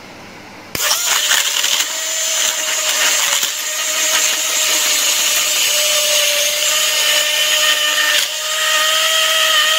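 Philips electric hand blender switched on about a second in, its motor running steadily as it blends yogurt, sugar and ice cubes into lassi in a steel pot. The motor sound dips briefly near the end and keeps going.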